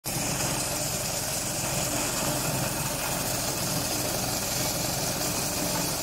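Small stationary engine driving a maize sheller, running steadily.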